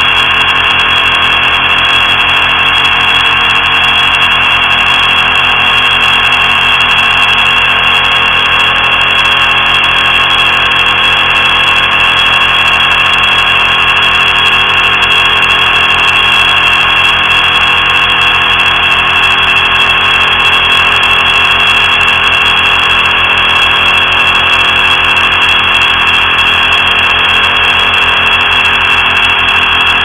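Sonified molecular-dynamics data: the velocity of one silicon atom near a silicon–germanium interface, along the direction parallel to the interface, played as sound. Its pitches are the atom's lattice vibrations scaled down into hearing range, heard as a steady drone of many held tones with a bright high whine as the loudest part.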